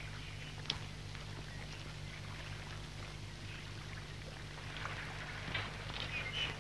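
Steady hiss and low hum of an old film soundtrack, with a sharp click about 0.7 s in and a few faint scattered sounds near the end.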